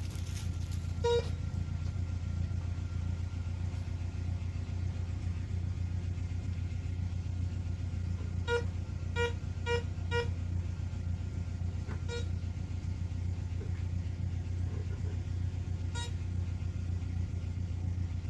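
Tractor engine idling steadily, with a metal detector giving seven short beeps (one about a second in, four in quick succession around the middle, then two more spaced out) as it picks up metal buried in the log.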